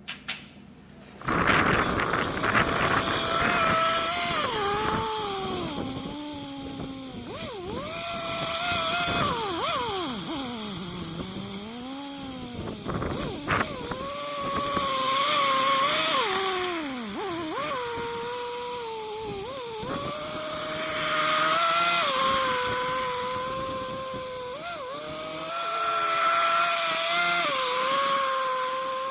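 An engine running with its speed rising and falling in slow swoops, then holding steadier with small surges.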